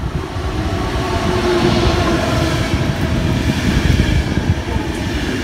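Locomotive-hauled sleeper train pulling into a station: the rumble and rattle of wheels on rails build up over the first second as the locomotive passes, then run on steadily as the coaches roll by, with a faint whine about two seconds in.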